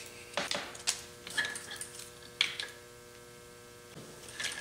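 Hands working with double-sided tape and small plastic electronics modules: a scatter of short crinkles, rustles and clicks as the tape backing is peeled and the two modules are pressed together among the wires. A steady electrical hum sits underneath.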